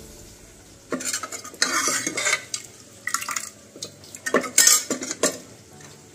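Metal ladle stirring thick arhar dal in a pressure cooker, scraping and clinking against the pot in several short bursts: about a second in, around three seconds, and again past four seconds.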